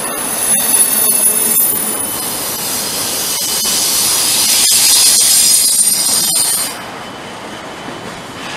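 Union Pacific intermodal freight cars rolling past, their steel wheels squealing on the rails in several high-pitched tones. The squeal cuts off suddenly near the end, leaving the quieter rumble of the train.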